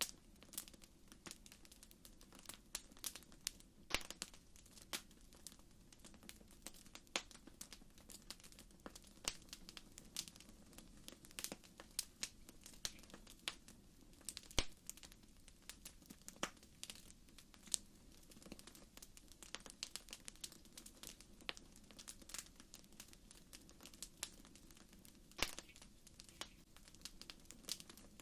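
Campfire crackling: irregular sharp pops and snaps from the burning wood over a steady low rush of the flames.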